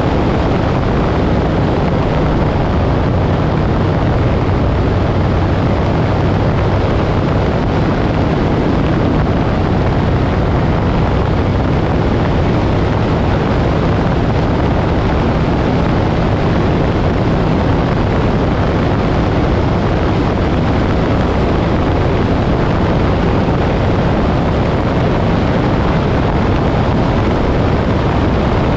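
Moto Guzzi Griso's V-twin engine running at a steady cruise, with wind rushing over the microphone.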